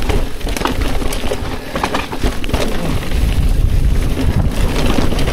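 Mountain bike rolling fast down a rough dirt trail: a steady rumble of tyres and wind on the microphone, with scattered knocks and rattles as the bike hits roots and bumps.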